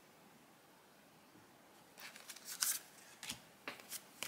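Trading cards sliding and flicking against one another in the hands as a pack is looked through. It is near quiet at first, then comes a cluster of short scrapes and taps in the second half.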